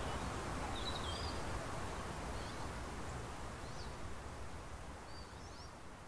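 Forest ambience: a steady background rush with small birds chirping briefly and high, about five times, the whole gradually fading out in the second half.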